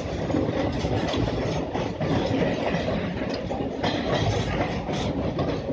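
Train running on the rails, heard from on board: a steady rumble of wheels and carriages, with a few sharp clacks over rail joints in the second half.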